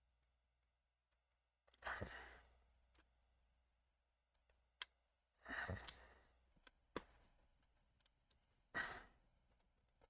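Three breathy exhalations about three seconds apart, with a few light clicks in between as the opened plastic mouse shell is handled.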